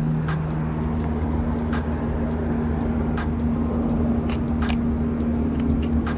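Steady low drone of an idling motor vehicle in city street ambience, with a few short, sharp clicks at irregular moments as gloved hands handle the camera.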